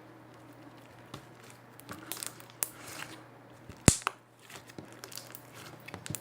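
Sticky homemade slime, made with shampoo, being stretched and squished by hand: crackling, tearing and sticky popping noises, with one sharp click a little before the middle that is the loudest sound.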